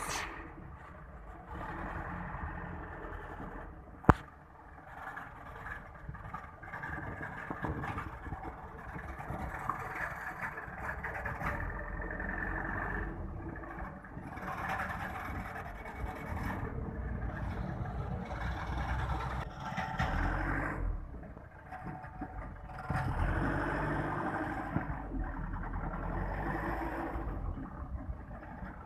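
Heavy diesel machinery engine running, its level rising and falling under changing load, with one sharp clank about four seconds in.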